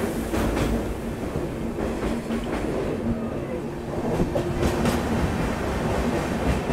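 Passenger train running along the track: a steady rolling rumble with wheels clicking irregularly over rail joints.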